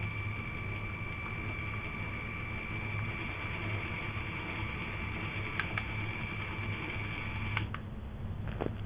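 LEGO Power Functions electric motors spinning the propellers of a home-built LEGO airship drive, running with a steady high whine, then cutting off suddenly about seven and a half seconds in.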